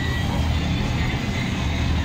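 Outdoor evening ambience: music playing over a steady low rumble.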